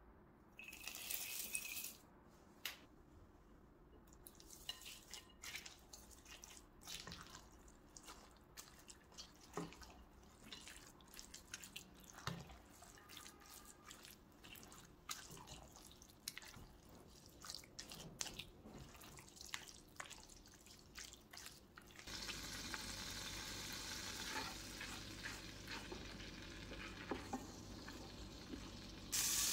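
Wooden spoon stirring a thick yogurt, vermicelli and spinach salad in a glass bowl: wet squelching with light clicks and scrapes. About 22 s in it gives way to butter sizzling gently in an enamel pot as a wooden spoon stirs it.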